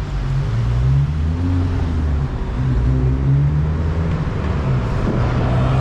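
City street traffic: a motor vehicle engine running close by, a steady low hum whose pitch drifts slightly, over the general road noise.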